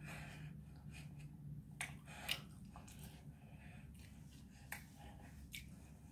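Faint sounds of eating and handling food on a tray: a few short clicks and rustles, the sharpest about two seconds in, over a low steady hum.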